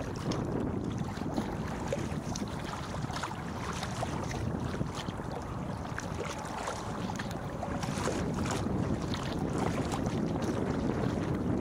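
Wind buffeting the microphone as a steady low rumble, with irregular small splashes of paddle strokes and choppy water lapping against a kayak's hull.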